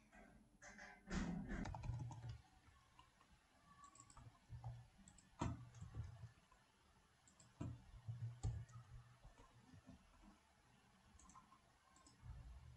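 Faint computer keyboard typing and mouse clicks: a short run of key taps about a second in, then scattered single clicks.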